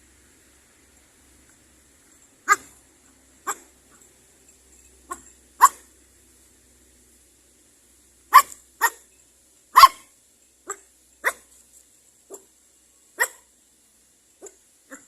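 A dog barking, about a dozen short single barks spaced irregularly, bunched closest together and loudest in the middle.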